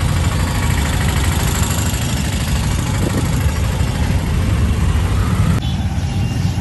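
Steady din of road traffic: motor vehicles' engines idling and running close by in slow, jammed traffic. The higher hiss drops away suddenly about five and a half seconds in.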